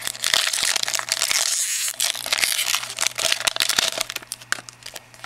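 Foil wrapper of a 2011 Topps Platinum football card pack being torn open and crinkled in the hands, with dense crackling that dies down about four seconds in.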